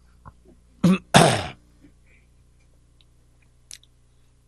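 A man clears his throat with two short, rough coughs about a second in, the second louder, close to a handheld microphone.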